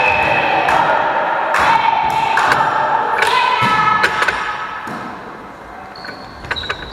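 Volleyball play in a sports hall: a series of sharp ball hits and thuds, over players calling out.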